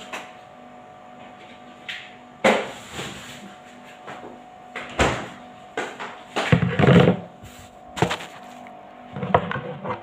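Kitchen handling noises: a handful of knocks and clatters of dishes and cupboard doors, the busiest stretch about seven seconds in, over a steady low hum.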